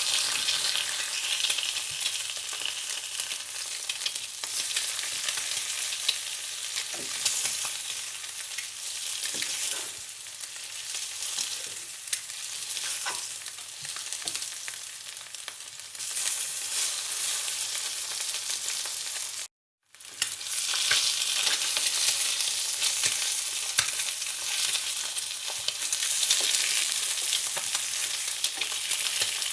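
Food frying in hot oil: a steady high sizzle with scattered small pops. The sound cuts out completely for about half a second roughly two-thirds of the way through, then carries on.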